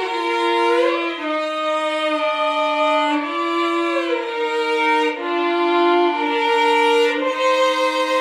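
A hymn tune played in two parts on bowed string instruments, most like a violin duet. Two held melodic lines move together, with sliding changes between notes.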